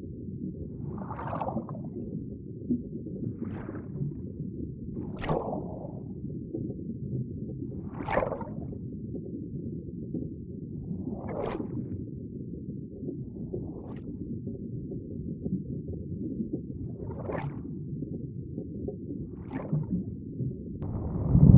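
Underwater water noise: a steady low rumble with a short watery swish every two to three seconds, and a louder rush of water starting near the end.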